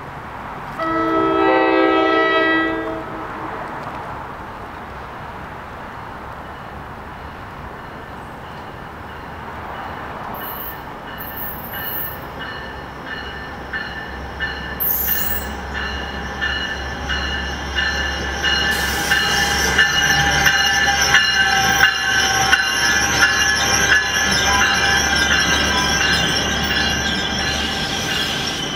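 A train horn sounds one chord-like blast of about two seconds near the start. Then an NJ Transit commuter train of double-deck coaches approaches and grows steadily louder, its wheels on the rails giving high ringing, squealing tones, and it passes close by in the last few seconds.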